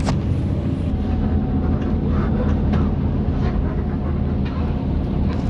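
Intercity bus engine running with road noise while driving, a steady low drone heard from inside the cab, with a few faint clicks.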